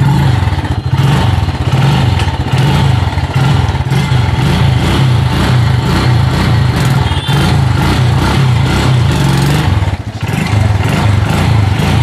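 TVS Radeon motorcycle's single-cylinder four-stroke engine running just after a kick start and being revved, its note rising and falling. The kick now engages and the engine runs with a newly fitted clutch plate, where before the slipping clutch kept it from starting.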